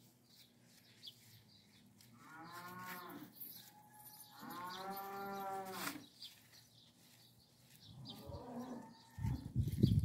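Cattle mooing: two long calls that rise and fall in pitch, about two and four and a half seconds in, then a shorter, fainter call. Near the end, a loud low rumble.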